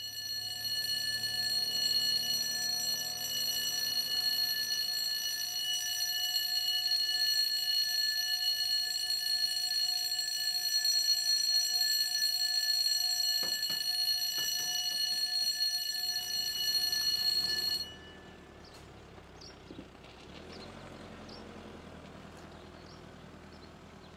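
Level crossing warning alarm sounding a steady, high-pitched tone while the crossing gates swing shut across the road, with a few knocks about two-thirds of the way through. The alarm cuts off suddenly and leaves only quiet outdoor sound.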